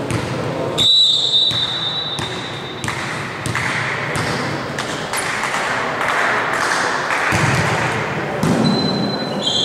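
A referee's whistle blows about a second in, one shrill steady tone of about a second and a half, signalling the serve. Ball hits and shoe knocks on the wooden court echo through the hall during the rally, and a second whistle sounds near the end.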